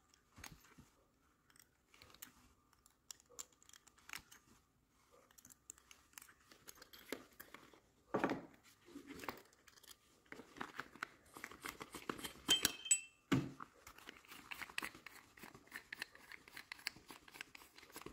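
Rubber-gloved hands taking apart a chrome shower lever tap: scattered small clicks, rubbing and rustling of metal parts and gloves on newspaper, busier in the second half, with a brief light metallic ring about twelve seconds in.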